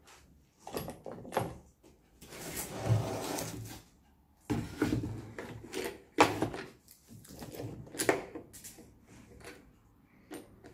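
Wood handling noises: a board scraping as it slides across a plywood jig for about a second and a half, then a series of knocks and clatters as it is set down and the wooden hold-down clamps are moved against it.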